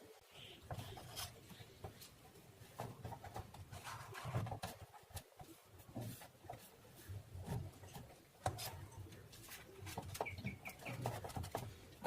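Faint scattered clicks and handling noise from wires and connectors being worked on an amplifier board, with a few faint bird chirps in the background about ten seconds in.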